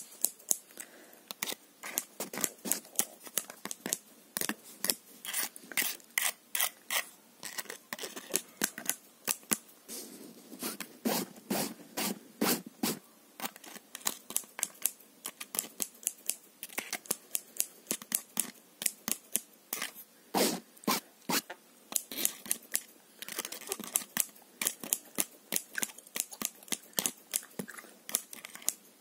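Green-handled scissors snipping repeatedly close to the microphone, sharp crisp metal snips at roughly three a second in an uneven rhythm.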